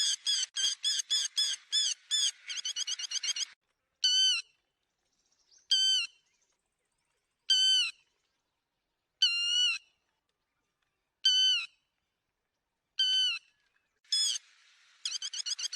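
Lapwing calls: a fast run of sharp, repeated notes, about five a second, for the first three and a half seconds. Then single loud calls come about every two seconds, and a fast run starts again near the end. It is a bird-trapping lure recording of the 'te te mỏ vàng' call.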